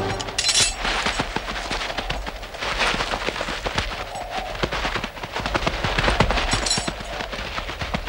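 Dense, irregular clatter of sharp knocks and impacts, with two brighter, harsher crashes about half a second in and again about seven seconds in.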